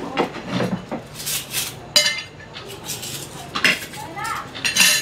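Plates and metal spoons and forks clinking and clattering against one another and the table as the table is laid: a run of irregular clinks and knocks.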